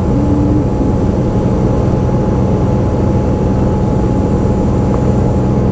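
Steady drone of a small propeller plane's engine heard from inside its cabin, with a low hum underneath.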